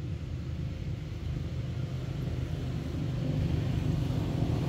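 A steady low rumble of background noise that grows a little louder about three seconds in.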